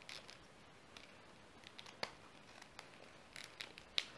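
Faint, scattered snips, clicks and crinkles of scissors cutting into a pen drive's stiff plastic retail packaging, with a sharper click near the end.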